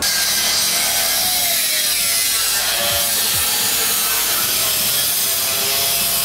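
Handheld power grinder working metal on the car's underbody: a loud, steady rasping hiss, with the motor's pitch wavering down and up as it is pressed on.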